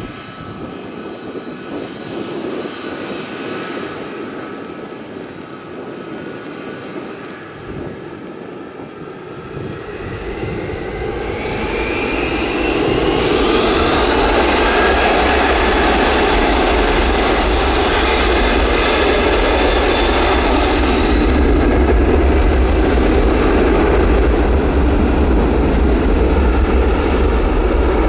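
Aircraft engines running with a steady whine, then spooling up: the whine rises in pitch and the sound swells to a loud, steady rumble about ten to thirteen seconds in, typical of an airliner going to takeoff power.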